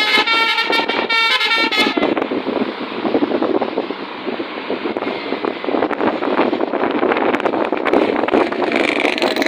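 Basuri telolet bus horn playing its multi-tone melody in quick steps, which stops about two seconds in. A steady rushing noise follows.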